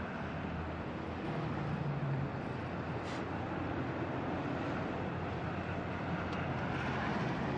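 Steady outdoor city background noise with a low vehicle rumble underneath, holding level throughout.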